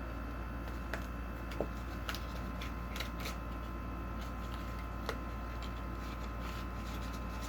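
Scattered small clicks and taps from handling a Pokémon card box, its packs and cards, over a steady electrical hum.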